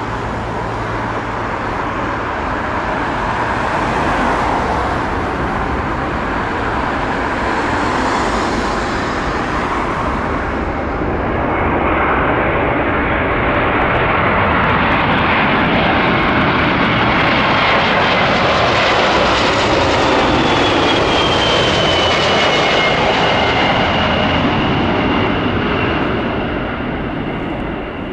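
Boeing 747-400 airliner on final approach passing low overhead, its four Rolls-Royce RB211 turbofans making steady jet noise that grows louder about twelve seconds in. A high engine whine falls in pitch as the jet goes by, and the sound fades near the end.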